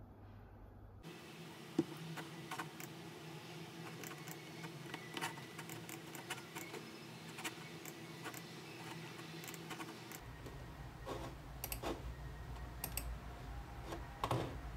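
Typing on a computer keyboard: irregular key clicks over a faint steady hum.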